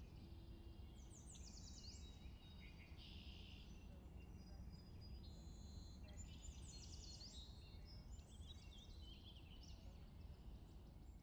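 Faint songbirds singing in bursts of quick trills, whistles and sliding notes, over a low, steady background rumble.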